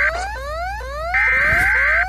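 Emergency Alert System alarm audio: a siren of rising pitch sweeps repeating about twice a second, then, a little after a second in, a loud burst of EAS digital header tones (SAME data) cuts in over it.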